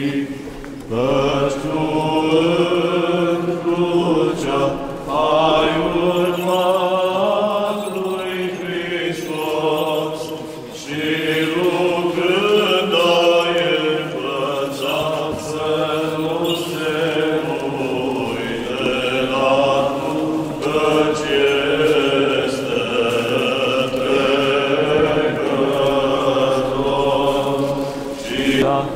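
Orthodox church chant: voices singing a slow, unaccompanied melody with long held and gently gliding notes.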